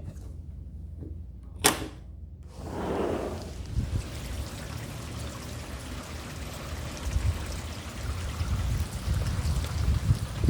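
Heavy rain falling: a steady hiss that sets in about two and a half seconds in, with a low rumble underneath. A single sharp click comes shortly before the rain sound begins.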